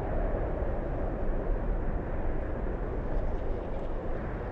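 Steady low rumbling roar of a volcanic fissure eruption, an even rush of noise with no single event standing out.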